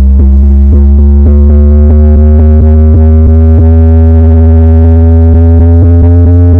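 Electronic dance music blasting from a huge carnival sound system, with heavy deep bass and a sustained synth tone slowly rising in pitch over a quick beat.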